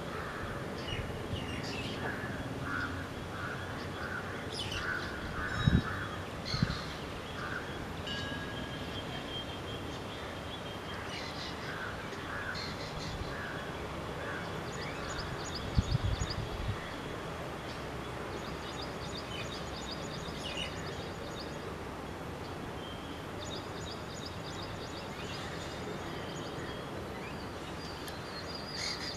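Wild birds calling over a steady outdoor hiss. There is a run of short repeated calls in the first few seconds, then bouts of fast, high-pitched trilling. A few low thuds come about six seconds in and again around sixteen seconds.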